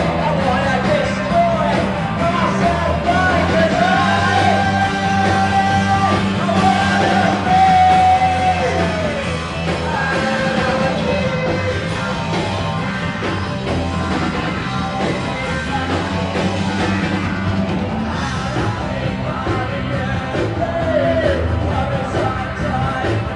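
Punk rock band playing live: electric guitar, bass and drums under a shouted lead vocal, with long held notes that bend down at the end.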